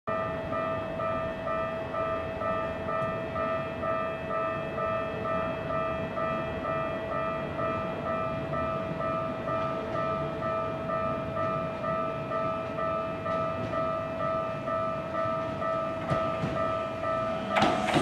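Japanese railway level-crossing alarm ringing, a rapid, evenly repeating electronic bell over a steady tone. Near the end a Keikyu 600 series train reaches the crossing and its noise rises suddenly.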